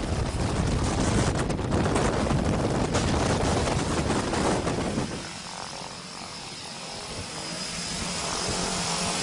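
Propeller airplane engine running, an even noisy drone that drops away about halfway through and then builds again toward the end.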